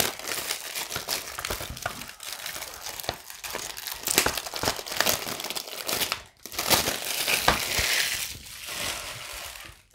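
Clear plastic shrink-wrap being torn and peeled off a Blu-ray case, crinkling and crackling all the way through. There is a brief pause a little past six seconds, then a louder stretch as the wrap is pulled away.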